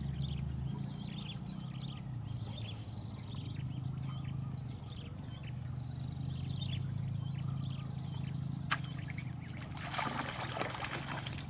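Small birds chirping repeatedly over a steady high hiss, then a single sharp click and, near the end, a burst of splashing as a hooked snakehead thrashes at the water's surface and is pulled out.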